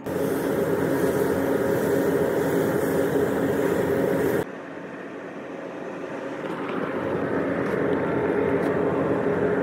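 Compressed-air paint spray gun hissing while a spray booth's ventilation runs with a steady hum. About four seconds in the sound changes abruptly, dropping in level and losing the high hiss, then builds steadily again.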